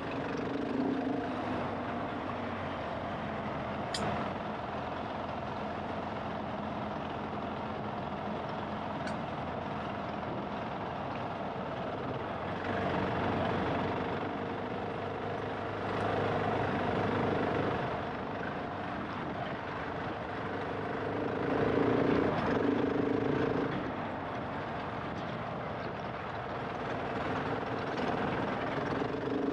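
GasGas ES700's single-cylinder four-stroke engine running steadily, growing louder in three short spells of throttle in the second half. A single sharp click about four seconds in.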